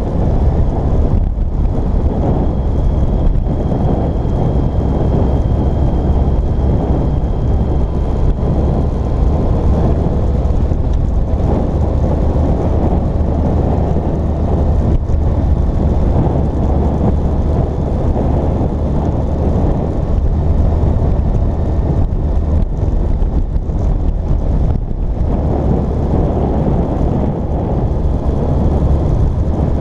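Steady wind rush on the microphone over the running inline-four engine of a 2006 Yamaha FJR1300 sport-touring motorcycle at road speed.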